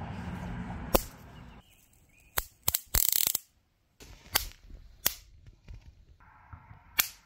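Endbug 4200-volt electric bug zapper's high-voltage grid snapping as insects fly into it: a string of sharp zaps at uneven intervals, with one longer crackling zap about three seconds in.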